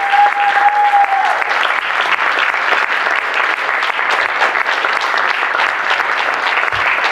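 Audience applauding, steady dense clapping throughout. A single held high tone sounds over it for about the first second.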